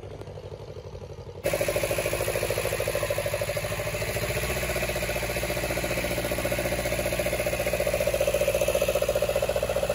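Small tractor's diesel engine running steadily with a fast, even beat, quieter at first and much louder from about a second and a half in.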